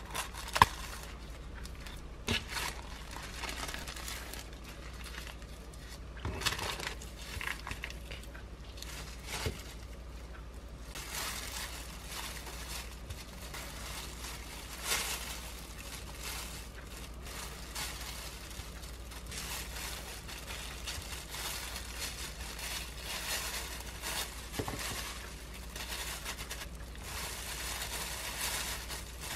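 Plastic film crinkling as hands handle and cut triangle-kimbap seaweed sheets with scissors, with a few sharp snips and clicks in the first ten seconds. After that comes steadier soft crinkling and rustling of disposable plastic gloves while rice is spooned onto the seaweed and fillings are laid on.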